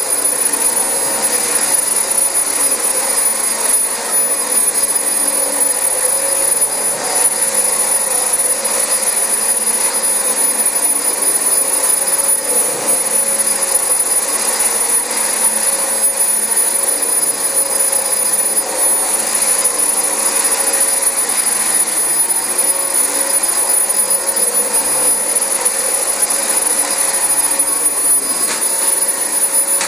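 Dyson DC25 upright ball vacuum cleaner running steadily over carpet, a constant motor noise with a steady high-pitched whine.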